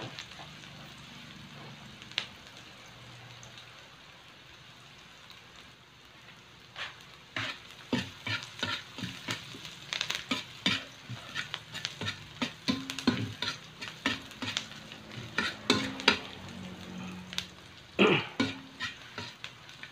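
Chopped onion sizzling in oil in a metal wok. About seven seconds in, a metal spatula starts stirring, scraping and clanking against the pan again and again, with one louder clank near the end.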